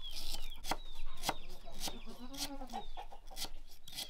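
Knife slicing on a wooden chopping block: a sharp tap roughly every half second. Chickens call throughout, with short falling peeps repeating and one low cluck about two and a half seconds in.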